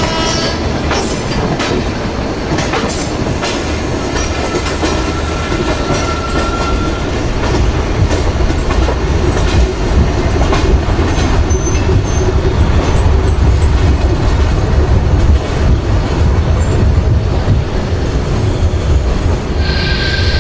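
Express train running on track: wheels clattering over the rail joints in repeated clicks over a steady rumble. The rumble grows louder about eight seconds in.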